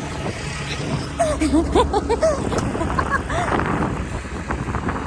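An engine idling with a steady low hum. Short rising and falling calls, voice-like, come over it between about one and two and a half seconds in.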